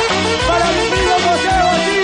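Cumbia villera played by a live band: a melody line that glides up and down in pitch over a steady bass and percussion beat.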